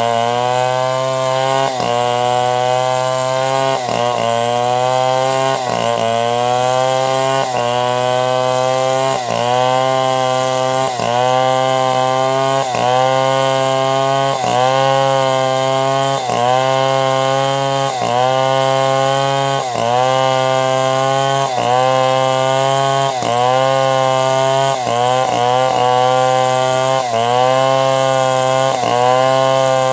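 Chainsaw running at high revs while ripping a log lengthwise into boards. Its engine note dips and recovers about every one and a half to two seconds as the bar is pushed into the cut.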